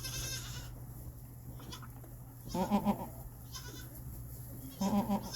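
A goat bleating twice, two wavering calls a couple of seconds apart, over a steady low hum.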